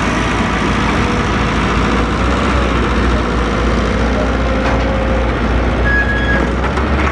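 Heavy construction machine's diesel engine running steadily, with a faint thin whine that drifts slightly in pitch.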